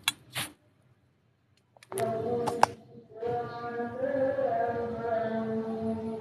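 A few sharp clicks, about a second of dead silence, then a voice chanting in long held, slightly wavering notes from about three seconds in.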